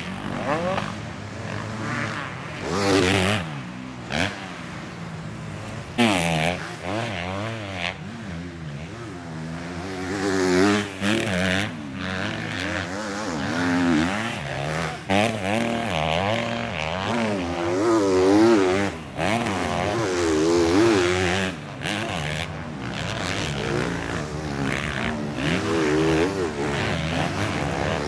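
Several MX2 250cc motocross bike engines revving hard and easing off as the bikes ride through the jumps. The pitch rises and falls over and over, the throttle snaps shut a number of times, and the engines of several bikes overlap.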